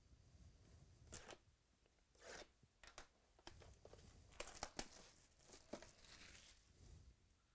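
Faint crinkling and crackling of clear plastic shrink wrap being slit and torn off a cardboard trading-card box, in a series of short crackles.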